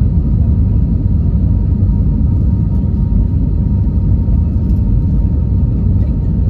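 Airbus A320 cabin noise on approach, heard from a window seat: a steady low rumble of engines and airflow, with a faint steady tone above it.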